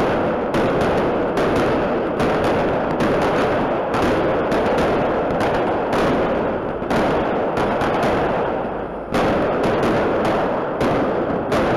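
Fireworks display: aerial shells bursting and crackling in quick succession, a dense, continuous barrage of bangs with no gap between them. About nine seconds in it eases briefly, then comes back with a sharp bang.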